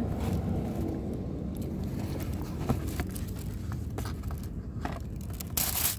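Cardboard shoe box being handled: the lid lifts off with light scrapes and taps, and a short loud rustle comes near the end, over a steady low rumble.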